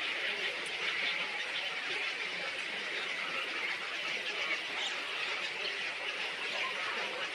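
Dense, steady chatter of many small birds chirping and squeaking over one another, with no single call standing out.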